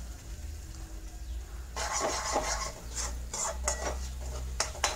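A metal spoon scrapes and clinks against a steel mixer jar and pan as ground masala paste goes into hot oil. About two seconds in, a sizzle starts and carries on under repeated scrapes and clicks.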